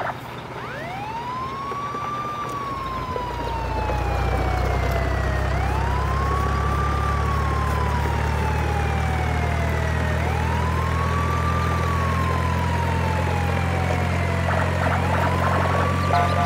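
A wailing siren rises quickly and falls slowly, four times about five seconds apart. From about three seconds in, a steady low engine-like drone runs under it, and a rapid stuttering beep comes in near the end.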